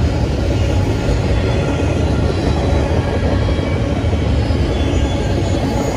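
Double-stack intermodal train's container well cars rolling past: a steady, loud rumble of steel wheels on rail, with faint thin high ringing tones above it.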